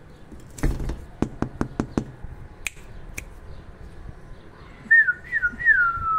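A quick run of five sharp clicks, then a person whistling: three short swooping notes, the last sliding down in pitch.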